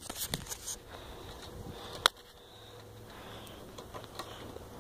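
Handling noise of a phone being held: a few light knocks and rustles, then one sharp click about two seconds in, followed by faint low background noise.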